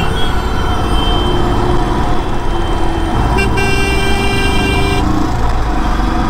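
Motorcycle riding in heavy city traffic, with constant engine and road rumble. A brief horn toot sounds near the start, then a longer horn blast comes about three and a half seconds in and lasts about a second and a half.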